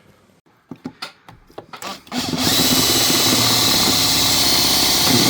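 A few light knocks, then a power drill-driver starts about two seconds in and runs steadily at one pitch, taking out the screws of an old uPVC window hinge.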